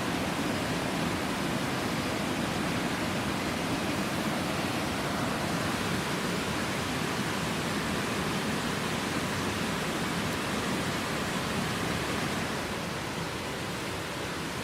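Heavy rain falling steadily, an even hiss and patter without a break, easing slightly near the end.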